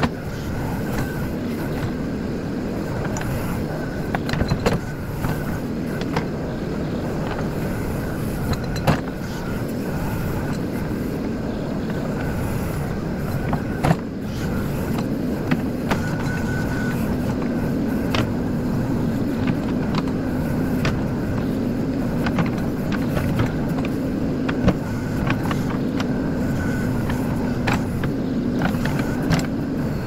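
JCB 4CX backhoe loader's diesel engine running steadily under load while the backhoe arm digs and dumps soil, with scattered short knocks and clanks from the bucket and arm. The engine note grows stronger about halfway through.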